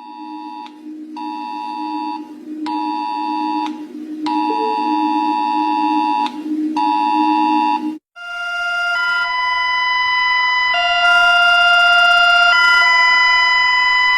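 Two electronic emergency alert tones in turn: first about five on-off beeps, each lasting about a second, over a steady low hum. Then, about 8 seconds in, a different and louder alert of long held tones that shift pitch in steps.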